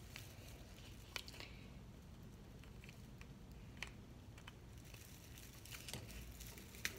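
Faint scattered clicks and rustles of an artificial tinsel Christmas tree being handled while its branches are set in place.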